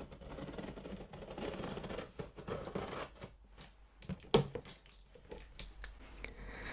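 A large cardboard box being opened by hand: rustling and scraping of cardboard and packing tape, with a run of small clicks and one sharp knock about four seconds in.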